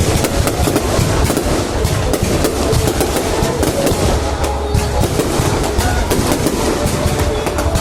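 Aerial fireworks display going off continuously: a dense stream of sharp cracks and pops over a steady low rumble of bursts.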